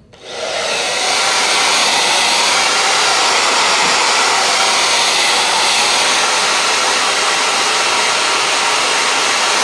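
Handheld hair dryer blowing steadily, coming up to full speed about a second in.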